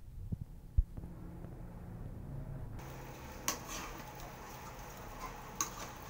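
Two low bumps in the first second. From about halfway, a faint steady hiss of a pot of pork boiling in water, with two sharp metal clinks as a wire mesh strainer knocks against the aluminium pot.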